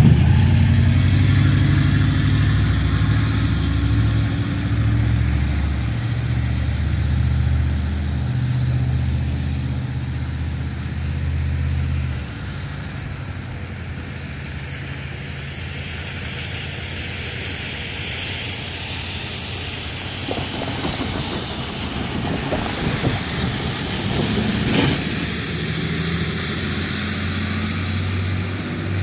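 Low rumble of road vehicle engines that drops off suddenly about twelve seconds in, leaving a steady hiss of rain.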